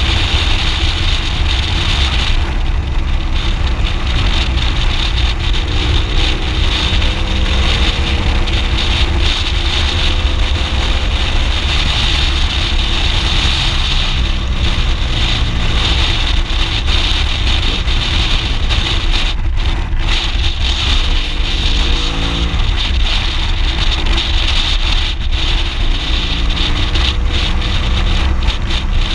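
BMW R1200GS Adventure boxer-twin engine running while riding, its pitch rising a few times as it accelerates, under heavy steady wind noise on the microphone.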